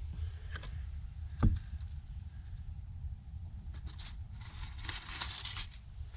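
Handling sounds of a metal grabber tool being worked to pick up a toad: faint clinks, a short knock about one and a half seconds in, and a scratchy rustle near the end, over a low steady rumble.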